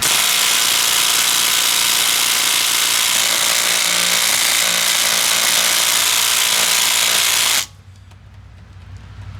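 Ridgid cordless impact wrench hammering on a car's lug nut for about seven and a half seconds, then stopping abruptly.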